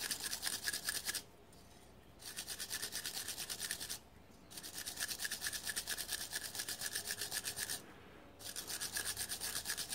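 Hand wire brush scrubbing a Yamaha TDR250 front brake caliper piston in quick back-and-forth strokes, several a second, cleaning the dirt and crud off it. The strokes stop briefly three times.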